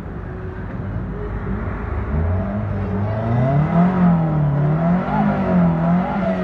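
Toyota Corolla sedan's engine revving as the car pulls slowly away. Its pitch climbs about two seconds in, then rises and falls several times with repeated blips of the throttle, growing louder.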